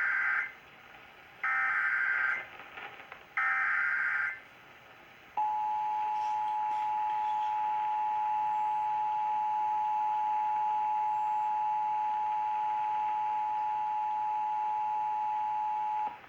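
Emergency Alert System SAME header: three roughly one-second bursts of warbling digital data about a second apart, the first already underway. Then comes the EAS two-tone attention signal, a steady dual tone held for about eleven seconds that cuts off sharply near the end. It marks the start of an alert for a severe thunderstorm warning.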